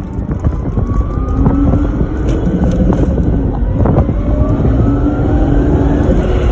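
Supercharged Lexus IS300's 2JZ-GE engine pulling under acceleration, with the Powerdyne centrifugal supercharger's whine rising in pitch, falling back about two seconds in, then rising again.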